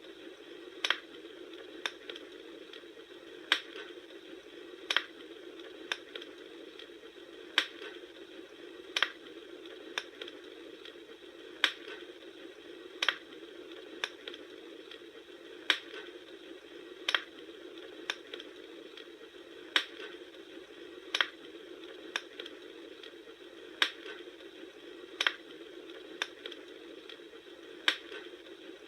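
Campfire crackling: a steady low hiss of burning wood with sharp pops that come in pairs about every four seconds.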